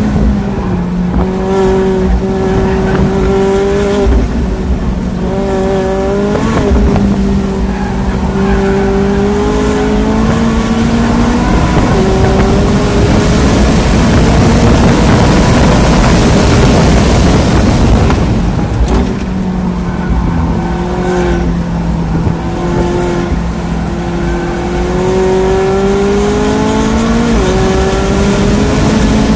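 2016 McLaren 675LT Spider's twin-turbo V8 pulling hard on a track lap, its note climbing through the revs and breaking at gear changes. Heavy wind noise rushes over the open cockpit at top speed around the middle, then the engine note rises again out of the slow corner.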